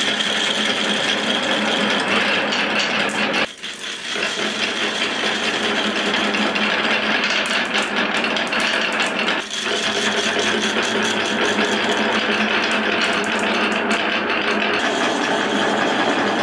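Dozens of glass marbles rolling down wooden tracks with wavy, serpentine grooves: a dense, steady clatter of clicks as the marbles knock against each other and the wood. It dips briefly twice, a few seconds in and about halfway through.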